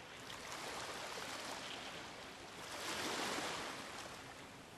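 Faint, even background hiss with no pitch or rhythm, swelling a little about three seconds in.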